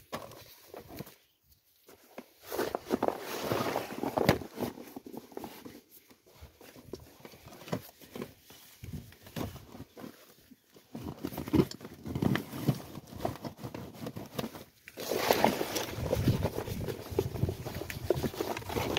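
Thick plastic sheeting rustling and crinkling as it is pulled and handled in a crawlspace, with irregular scuffs and knocks from a person shifting on the dirt and working beside a plastic bucket. The rustling is busiest a few seconds in and again near the end.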